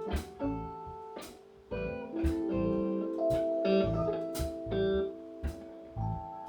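Guitar jam in A minor: plucked guitar notes and held lines ringing over a steady drum beat.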